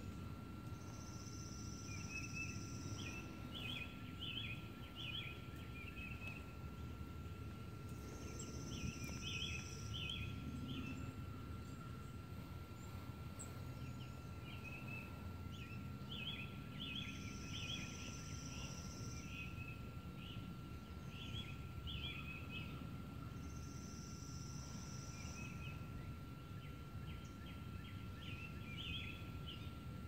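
Wild songbirds singing: clusters of quick chirping phrases again and again, and a high, buzzy trill about two seconds long that comes back four times, over a steady low background rumble.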